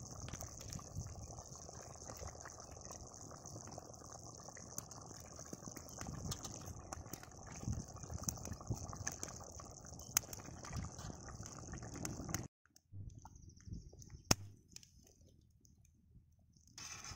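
Fish curry bubbling at the boil in a large iron kadai, a low bubbling with small pops under a steady high hiss. About three-quarters of the way through the sound drops off abruptly and stays quieter.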